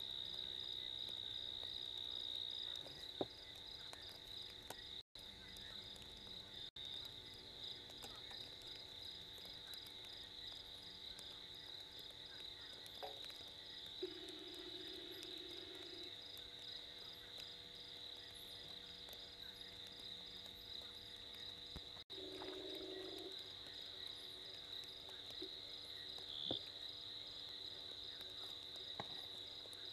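Night chorus of insects: a steady, faint high trill that runs without a break. A short low buzzing call sounds twice, about halfway through and again a few seconds later.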